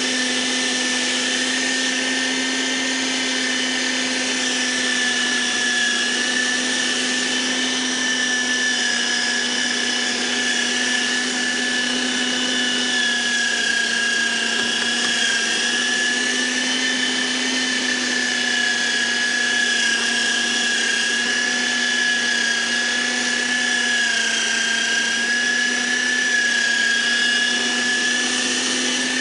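Electric meat grinder running continuously as vegetables are pushed through it: a steady motor whine whose pitch sags slightly now and then.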